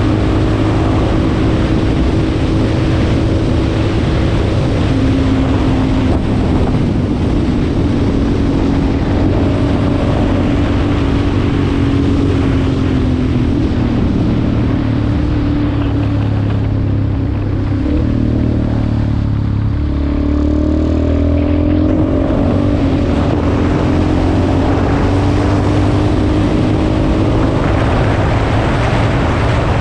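Yamaha XTZ 250's single-cylinder four-stroke engine running steadily under way. About two-thirds through, its pitch dips and wavers, then climbs back up.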